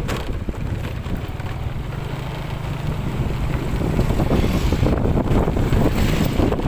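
Strong wind buffeting the microphone: a loud, low rumble that grows louder about four seconds in.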